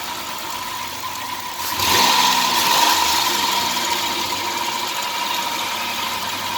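2003 Dodge Grand Caravan's 3.3-litre V6 running with the serpentine drive belt off the crank pulley, a steady run with no belt chirp; it gets louder about two seconds in. With the belt off, the hissing and chirping is gone, which points to the belt drive as the cause.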